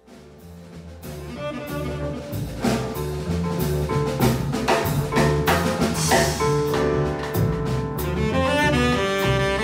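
Live jazz quartet playing: saxophone, piano, double bass and drum kit. The music fades in from silence over the first couple of seconds, with drum and cymbal hits over bass notes, and long held melody notes come in during the second half.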